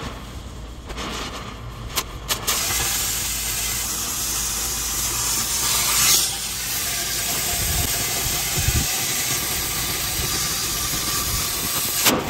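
Oxy-fuel cutting torch hissing steadily as its jet cuts through the wall of a steel pipe, blowing out sparks and molten slag. The hiss grows louder about two seconds in, after a few sharp clicks, and swells briefly midway.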